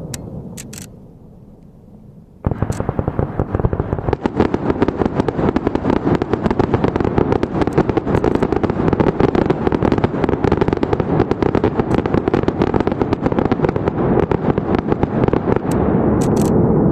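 Fireworks display: after a fading lull with a few crackling pops, a dense barrage of shell bursts starts suddenly about two and a half seconds in, many bangs a second running together, with more crackling pops near the end.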